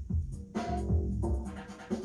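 Background music with a beat of low drum hits.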